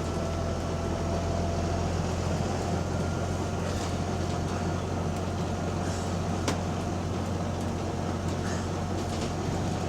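Double-decker bus on the move: a steady low drone from the engine and drivetrain, with a few sharp knocks and rattles, the loudest about six and a half seconds in. The rider takes the knocks for a loose part.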